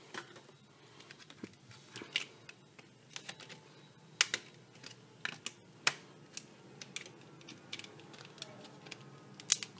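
Irregular light clicks and taps of hard plastic packaging and a small flash drive being handled while the drive is taken out of its pack.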